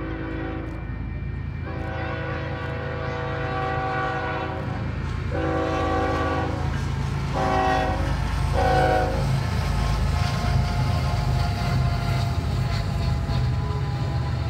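Union Pacific diesel freight locomotives sounding their multi-chime air horn in several blasts, a long one and then shorter ones over the first nine seconds or so, as the train approaches. The engines' rumble and the double-stack container cars rolling over the rails grow louder as the train passes close by.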